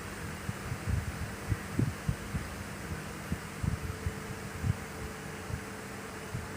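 Soft, irregular low thumps, a few a second, over a steady electrical hum.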